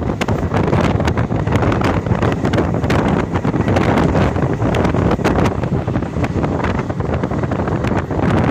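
Wind rushing over the microphone held out of a moving passenger train, over the steady rumble of the train running along the track, with many short sharp clicks scattered through it.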